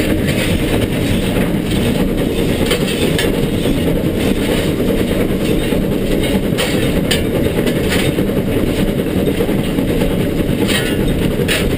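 Cab noise of LNER K4 steam locomotive No. 61994, a Gresley three-cylinder 2-6-0, running on the climb: a loud, steady rush of the working engine, with irregular sharp clicks and rail clatter over it.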